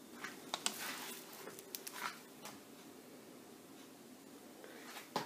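Faint handling noises as a wooden beehive frame holding a slab of sugar candy is moved on wax paper: light rustles and several small clicks over the first two seconds or so, then one sharp click near the end.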